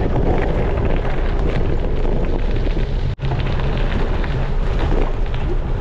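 Wind rushing on the microphone over the rattle and crunch of a Canyon Grail gravel bike's tyres on a rough gravel trail at downhill speed. The sound cuts out for an instant about three seconds in.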